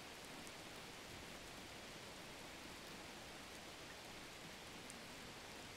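Faint, steady hiss with no distinct sounds in it.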